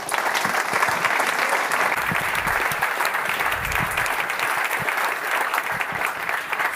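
Audience applauding: steady clapping from a room full of people that starts right after a conference talk ends and keeps up until the host speaks again.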